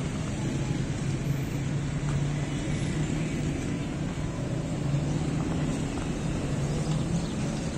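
City street traffic: car engines running and passing, a steady low rumble with no single event standing out.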